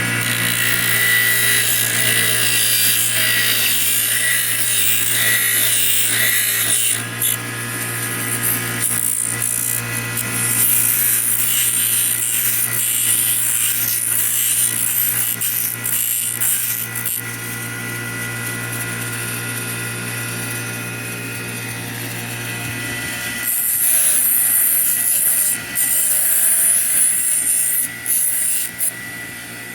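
Electric grinder running with a steady motor hum while a dryer knob is ground down against it, the grinding hiss swelling and easing several times as the knob is pressed on and eased off.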